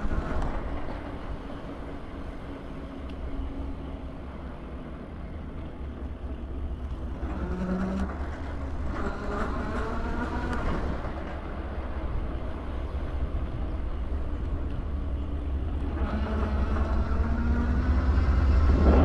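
City street traffic: vehicles running and passing with a steady low rumble. Near the end a heavier vehicle approaches, louder, with a slowly rising whine.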